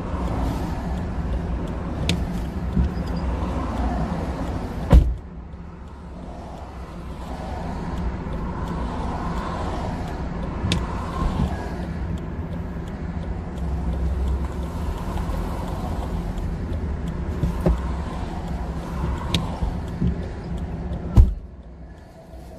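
A car door slams shut about five seconds in and again near the end; each slam cuts the steady low vehicle rumble outside down to a muffled level. Heard from inside the car's cabin.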